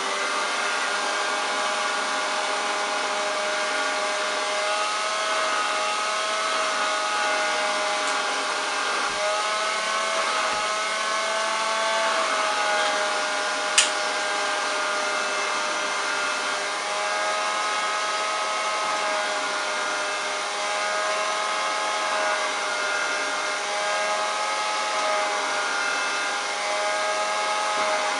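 1935 Hoover Junior 375 vacuum cleaner running with its hose attachment, a steady motor-and-fan whine wavering slightly in pitch. A single sharp click about fourteen seconds in.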